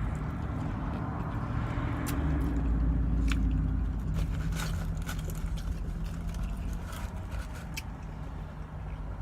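Close-up biting and chewing of fried chicken, with wet mouth clicks and smacking. Under it runs the low rumble of road traffic, which swells a couple of seconds in as a vehicle passes.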